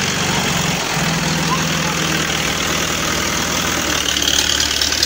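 Diesel tractor engine running steadily close by, a low even chug, its pitch dipping briefly about a second in.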